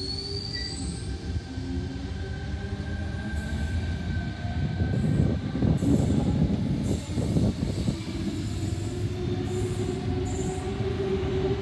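Sydney Trains Tangara electric train pulling out and running past, with a high whine that rises in pitch near the start and several steady tones over the rumble and clatter of wheels on the track. The rumble is loudest a little past the middle.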